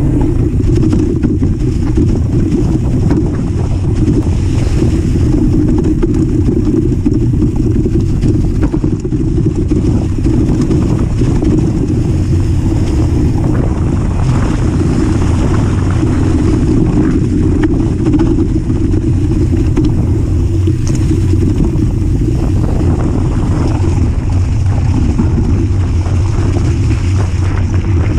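Steady low rumble of wind buffeting a GoPro action camera's microphone as a mountain bike rolls at speed, mixed with its tyres running over a leaf-covered dirt trail.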